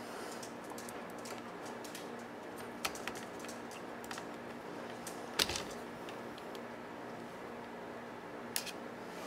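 Sparse small clicks and taps of a screwdriver and screws being worked into a cassette deck's tape transport during reassembly, the sharpest about five and a half seconds in, over a steady hum.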